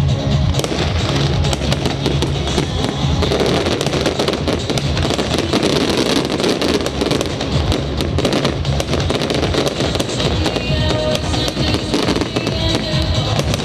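Fireworks going off in rapid succession, many sharp bangs and crackles, over loud music with a steady bass.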